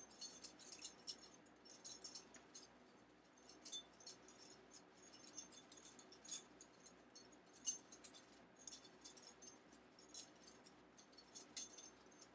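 Butterfly knife being flipped and twirled in the hand: quiet, irregular metallic clicks and jingling of its loose handles and pieces.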